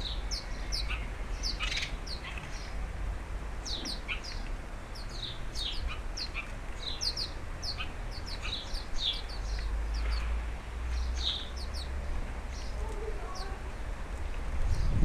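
Small garden birds chirping, many short high calls in quick succession overlapping one another, over a low steady rumble.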